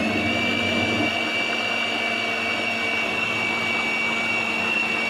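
Electric food processor motor running at constant speed with a steady whine, its blade chopping frozen banana chunks.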